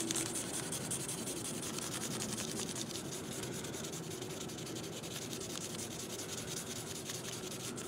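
Felt-tip marker scribbling on a brown paper bag, colouring in a stripe with quick, steady back-and-forth strokes.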